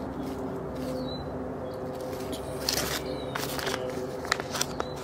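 A steady low mechanical hum, with a few short, high bird chirps over it. From about halfway through come crinkling and clicks of plastic packaging being handled.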